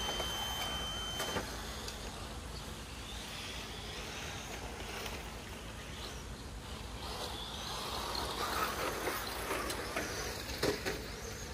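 Electric 1/10-scale RC rally cars running on a dry dirt track: electric motors whining up and down with the throttle over tyres scrabbling on loose dirt. It grows louder as two cars pass close by near the end, with a couple of sharp knocks.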